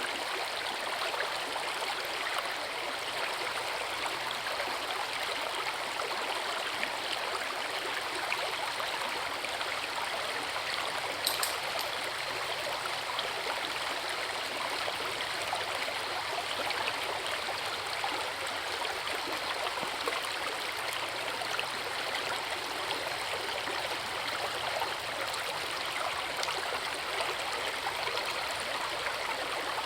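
Forest river rushing steadily over a waterfall, an even, unbroken wash of water. A single brief high tick sounds about a third of the way in.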